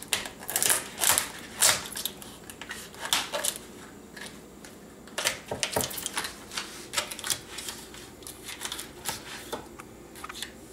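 A freshly boiled lobster being handled after coming out of the pot: irregular sharp clicks and clacks of its hard shell, in quick clusters, with a quieter stretch in the middle.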